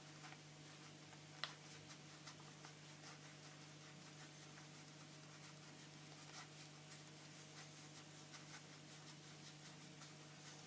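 Faint handling of playing cards as a deck is gone through card by card: soft scattered snaps and slides, with one sharper click about a second and a half in, over a steady low hum.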